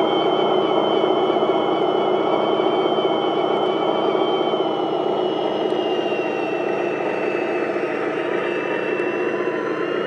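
Electric drivetrain of a radio-controlled MAZ-537 8x8 truck model whining steadily as it pulls a loaded trailer slowly over gravel, with the hiss of its gears under the high motor whine. The pitch sags a little about halfway through.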